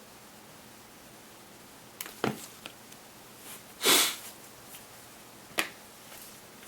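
A single short sniff about four seconds in, with a few faint clicks and taps around it.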